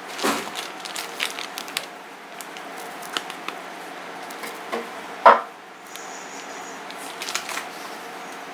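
Plastic measuring cup scooping flour and knocking against the rim of a flour sieve, scattered light clicks and taps with one sharper knock about five seconds in.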